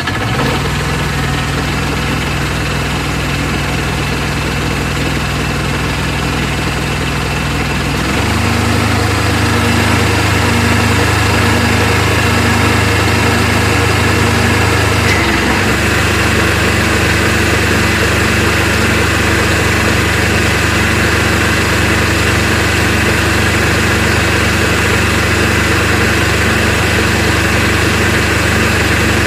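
Tractor engine idling steadily throughout. Its note changes abruptly about eight seconds in and again about fifteen seconds in, with a slow, regular pulse after the first change.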